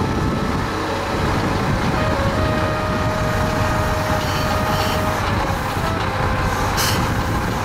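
Diesel railcar rolling slowly alongside the platform and slowing, its engine running under a steady whine that dips slightly in pitch past the middle.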